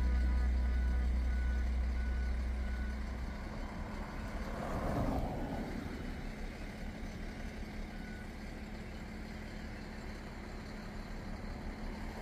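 Background music fades out over the first few seconds, giving way to road traffic noise. A vehicle passes about five seconds in, rising and falling, and a steady low rumble follows.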